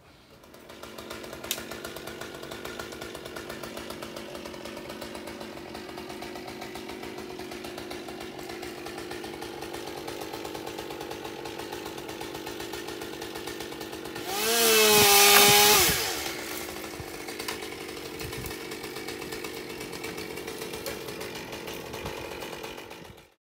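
Chainsaw engine running steadily at idle, then revved hard to full throttle for about two seconds and let back down to idle.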